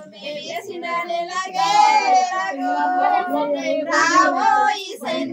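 Voices singing a song: a high, wavering melody line with a lower voice beneath it, the kind of ceremonial song sung at a seemantha (baby shower).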